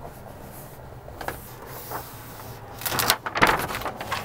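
Paper release liner being peeled off a sheet of Second Skin Damplifier sound-deadening mat as the sheet is pressed up by hand: a few short paper rustles and crinkles, the loudest cluster about three seconds in.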